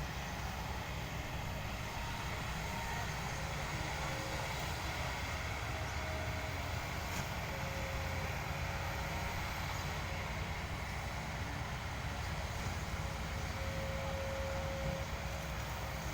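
Excavator's diesel engine running steadily, a constant low rumble with no letup.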